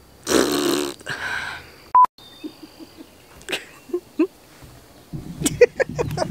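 A woman's breathy outburst lasting about a second, then a short, high electronic beep about two seconds in, followed by soft scattered vocal sounds.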